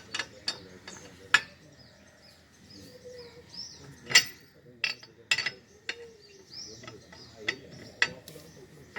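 Sharp metallic clinks of a steel wheel spanner on a car's wheel nuts, irregular, about ten over a few seconds, as the nuts are turned tight one by one. Birds chirp faintly in the background.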